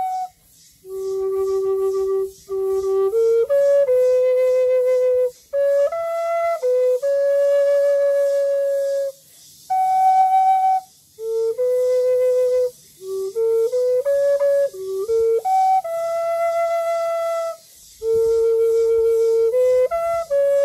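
Bamboo flute playing a slow melody of long held notes that move up and down in small steps, with short pauses between phrases.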